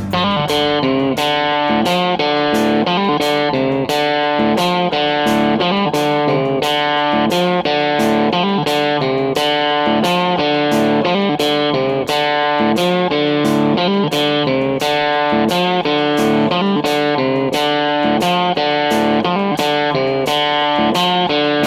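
Background guitar music with a steady, even rhythm.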